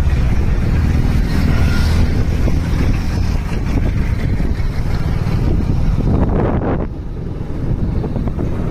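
Wind buffeting the microphone: a loud, steady low rumble that dips briefly about seven seconds in.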